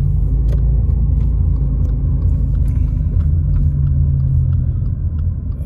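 Car cabin sound while driving: low engine and road rumble with a steady engine hum that eases off near the end, and a few faint ticks.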